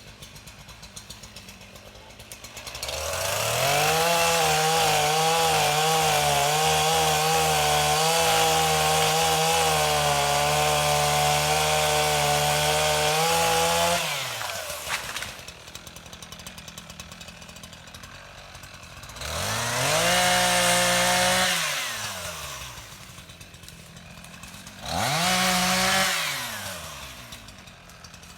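Chainsaw idling, then run up to full throttle for about eleven seconds, its pitch wavering slightly as it cuts wood. It then drops back to idle and is revved twice more in shorter bursts.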